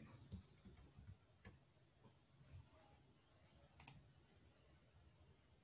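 Faint computer mouse clicks over near-silent room tone: a few single clicks, then a quick double click about four seconds in.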